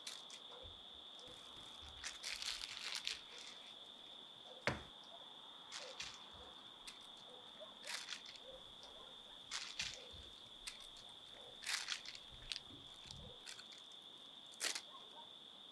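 Quiet handling noises of someone rummaging through things: scattered rustling and crinkling with short clicks and knocks every second or two, over a steady high-pitched whine.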